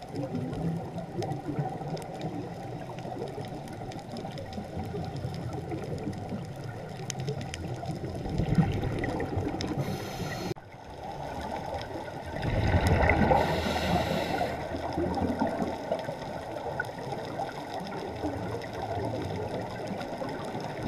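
Underwater sound picked up by a diver's camera: a steady water hiss with two louder gurgling surges of exhaled regulator bubbles, about eight seconds in and again around thirteen seconds, and faint clicks throughout.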